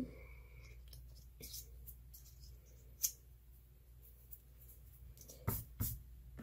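Quiet handling of a small strip of glitter cardstock by hand: scattered light taps and rustles, with two louder knocks against the table about five and a half seconds in.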